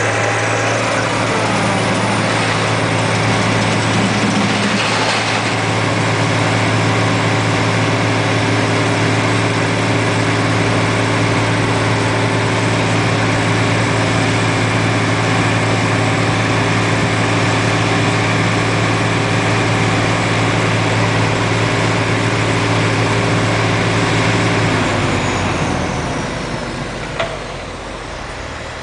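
Hydraulic vibratory pile hammer clamped to a steel pile column, running with a steady mechanical drone, then winding down and stopping about 25 seconds in, leaving a lower background engine noise and a single click near the end.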